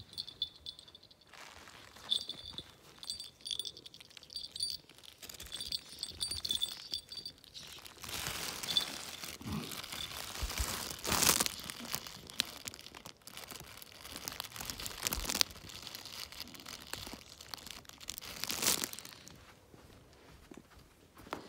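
A small jingle bell on a cat's play tunnel tinkles on and off for the first several seconds. Then the tunnel's crinkly fabric rustles and crackles as the cat scrambles in it, loudest in a few sharp bouts.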